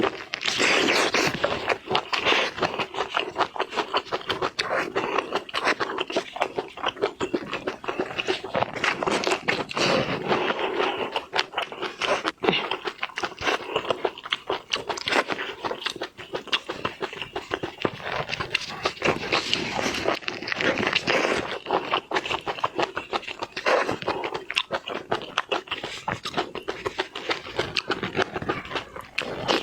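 Close-miked chewing and biting of seafood: dense, rapid wet crunching and mouth clicks that go on without a break.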